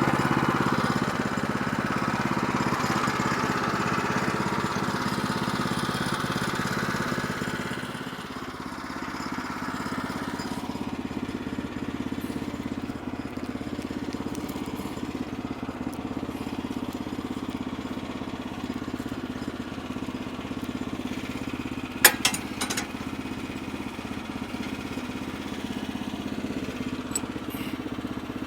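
The gasoline engine of a Woodland Mills portable sawmill running steadily, with added higher-pitched noise for the first eight seconds before it settles to a lower, even running sound. Two sharp knocks about 22 seconds in.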